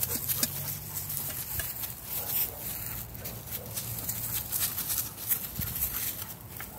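German Shepherds panting and moving about in grass and dry leaves, with irregular soft rustles and footfalls.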